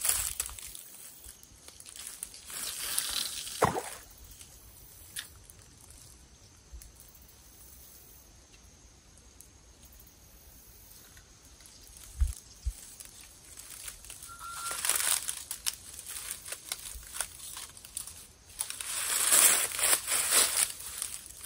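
Rustling and crunching in dry grass and fallen leaves as someone moves on the bank, coming in a few short bursts with quiet stretches between.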